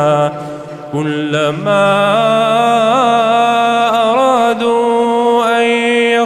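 Male voice chanting Quran recitation in tajweed style. The voice holds long ornamented vowels that waver in pitch, with a short breath about a second in.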